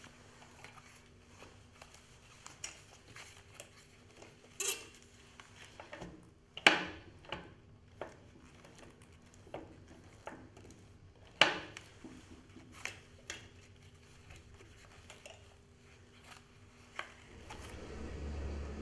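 Scattered metal clicks and clinks of handling the magnetic drill, with two sharper knocks about six and eleven seconds in. Near the end a steady low hum sets in as the drill's motor starts.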